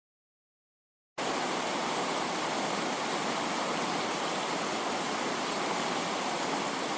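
After about a second of silence, a steady static-like hiss of even noise starts abruptly and holds unchanged.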